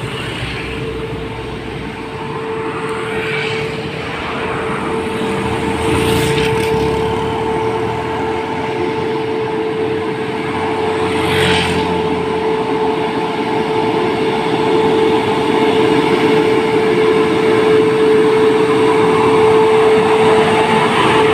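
Heavy American conventional diesel truck approaching slowly up the road, its engine drone carrying a steady whine that grows louder as it nears. A few lighter vehicles pass by with brief swells of sound along the way.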